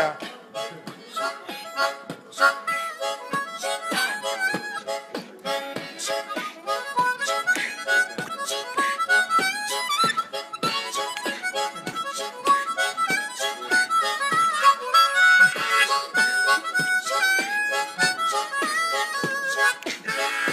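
Blues harmonica (diatonic "blues harp") played in a fast, rhythmic run of short notes, held in cupped hands.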